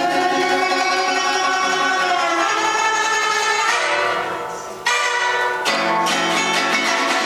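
Guzheng (Chinese zither) played live: fast plucked notes that fade away about four seconds in, then a sudden loud struck chord and the playing picks up again.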